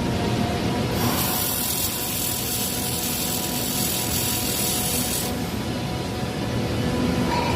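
Steady hissing, rasping machine noise with a faint steady hum underneath, brighter and harsher from about a second in until about five seconds.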